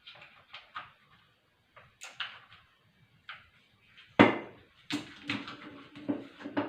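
Scattered clicks and knocks from a window-cleaner blade being taken off its tool and refitted turned around, with the loudest knock about four seconds in and a quick run of clicks after it.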